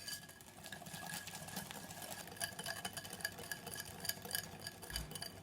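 A wire whisk mixing a thick banana custard batter in a bowl, with a steady run of quick, light ticks as the wires scrape and tap against the bowl.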